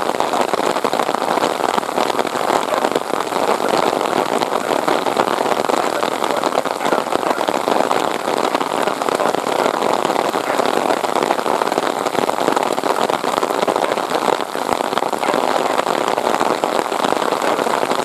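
Steady hiss of heavy rain, blended with the broad rush of a Boeing 777-300ER's GE90 jet engines as the airliner rolls out after landing.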